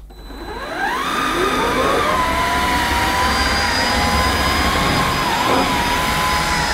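AEG FX9 cordless vacuum cleaner switched on: its motor whine rises over about a second, then runs steadily on medium setting as the motorised brush head is pushed over thick-pile carpet. The pitch dips briefly a couple of times; the brushes keep turning but the machine is struggling a bit with the deep pile.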